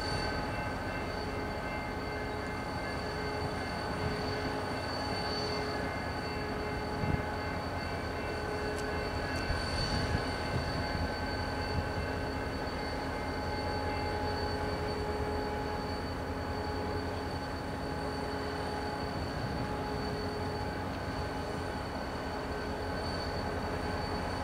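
Diesel locomotives running in a rail yard as the Rocky Mountaineer passenger train moves slowly past: a steady drone with several held tones, one of them pulsing about once a second. A few short knocks come about seven to twelve seconds in.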